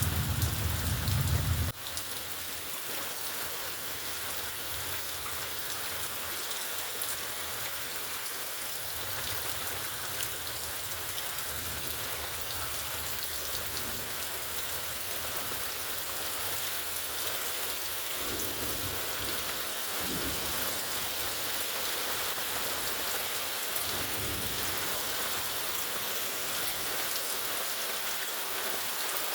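Steady rainfall, an even hiss of drops, with a low rumble in the first two seconds that cuts off abruptly and fainter low rumbles now and then.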